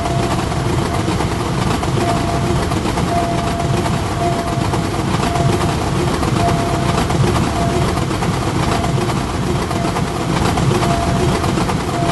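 Train passing over a railway level crossing: a steady, loud rumble and rattle of the wheels and cars on the track.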